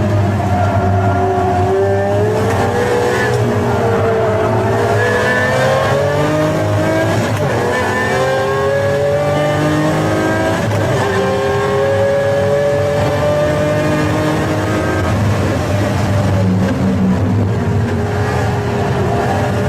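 Pagani Zonda F Clubsport's Mercedes-AMG V12 running hard on track, revs climbing and falling with gear changes about seven and eleven seconds in.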